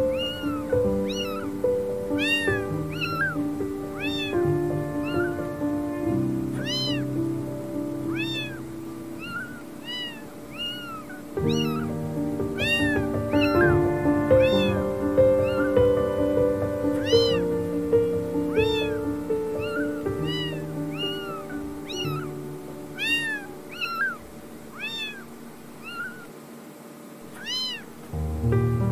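Newborn kittens mewing: thin, high-pitched cries that rise and fall, repeated roughly once a second and fewer near the end, over background music.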